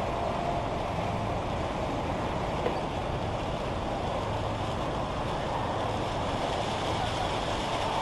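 Automatic bus wash running, its large rotating brushes scrubbing a minibus as it moves through; a steady, even machine noise.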